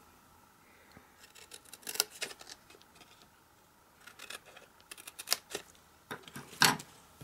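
Small scissors snipping black cardstock: a series of short, crisp snips as slits are cut up to the score lines. A louder knock comes near the end.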